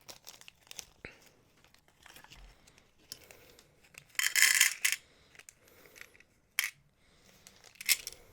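A plastic packet of glass beads being handled: crinkling and rustling, loudest for about a second midway and again briefly near the end, with scattered small clicks of glass beads.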